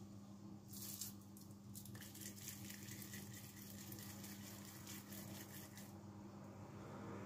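Faint wet squishing and patting of wet hands rolling minced beef-and-pork mixture into meatballs, densest through the middle, over a steady low hum.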